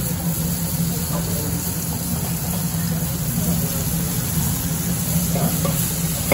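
Chickpeas sizzling gently in water and oil on a large steel griddle, over a steady low hum and faint background chatter. The metal spoon comes back onto the griddle at the very end.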